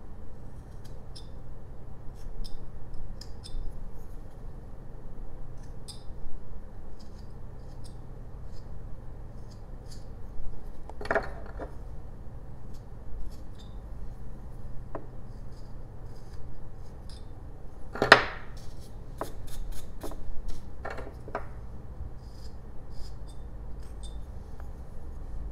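Carving knife taking small slicing cuts in a jelutong figure: soft scrapes and little ticks of the blade in the wood, with a few louder sharp knocks, the loudest about two-thirds of the way through.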